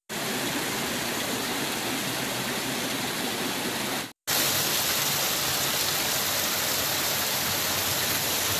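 Small waterfall splashing over rocks in a forest stream: a steady rush of water that drops out for a moment about four seconds in and comes back a little louder.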